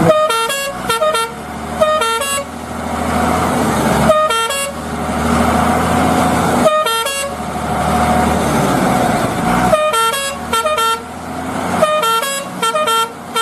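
Electronic truck-horn sound effect: clusters of short beeping horn notes that jump between a few pitches, sounding about seven times. A steady noisy hum fills the gaps between them.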